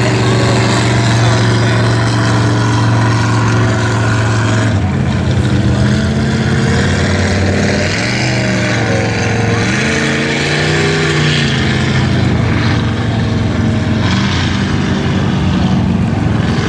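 Motorboat engine running at speed, a steady drone whose pitch drops about five seconds in, then wavers up and down in the middle.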